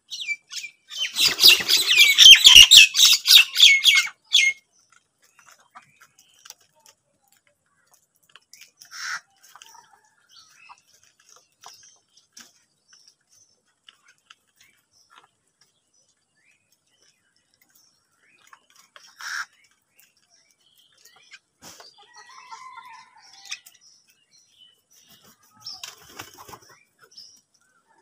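House crows at a food bowl: a loud rush of flapping wings and calls lasting about three seconds, starting about a second in. After it come only a few short, faint calls.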